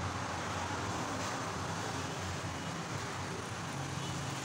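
Steady background noise between spoken sentences: an even hiss with a low hum underneath, with no distinct events.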